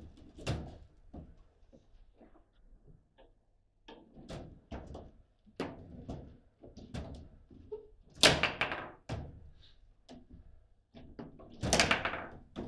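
Table football being played: sharp plastic knocks and clacks as the rod-mounted players strike the ball and the rods bang against the table, with two louder bursts of rapid clattering about eight and twelve seconds in.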